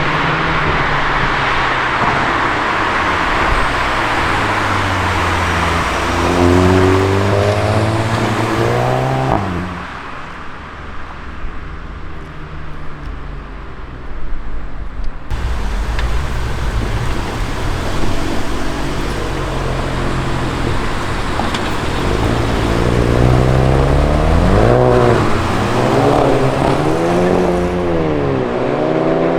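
Stock Volkswagen Golf GTI turbocharged four-cylinder engine accelerating and revving. The pitch climbs once about a third of the way in and drops, runs steadier for a while, then rises and falls in several quick revs near the end.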